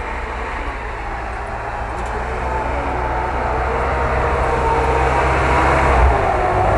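UAZ-469 off-roader's engine running as it drives up the track toward the listener, growing steadily louder, with a low rumble beneath and its engine note coming through more clearly from about halfway in.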